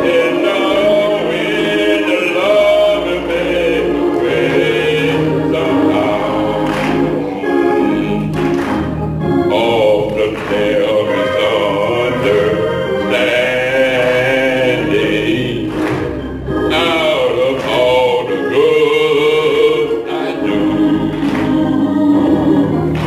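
A choir singing, many voices together in one continuous sung passage.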